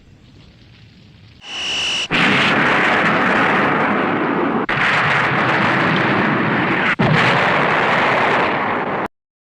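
Film sound-effect explosions: after a quiet opening second, a brief high whine, then a continuous loud barrage of blasts for about seven seconds, broken twice by short gaps and cutting off abruptly.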